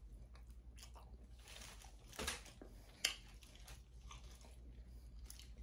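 Faint close-up chewing and wet mouth smacks of someone eating seafood boil in garlic butter sauce, with a few short sharp clicks.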